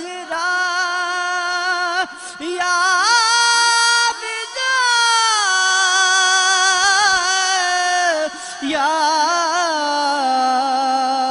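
A solo voice sings a slow, wordless melismatic line in devotional naat style, with no instruments. The long held notes wind up and down, with short breath gaps, and the line sinks lower over the last few seconds.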